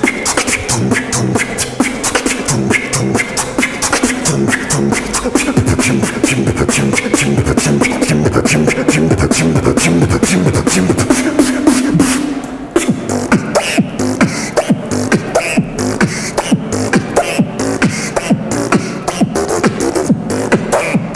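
Solo human beatboxing: fast kick, snare and hi-hat sounds made with the mouth over hummed, buzzing bass lines. About twelve seconds in the beat briefly drops out, then comes back sparser, with sharper, more spaced-out hits.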